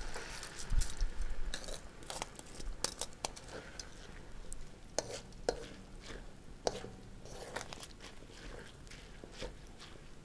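Sticky rice tipped from a metal strainer into a stainless-steel wok of coconut milk, then stirred with a wooden spoon: soft wet scraping with scattered sharp knocks of the spoon and strainer against the pan.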